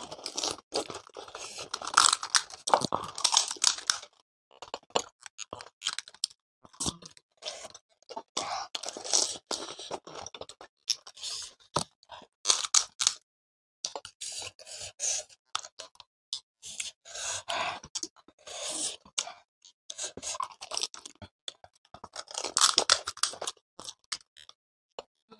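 Crisp panipuri shells being crunched and chewed, with sharp crackling bites coming in bursts and short quiet gaps between mouthfuls.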